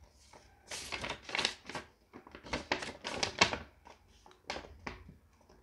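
Folded paper leaflet being unfolded and handled: a run of irregular, crisp rustles and crackles of paper.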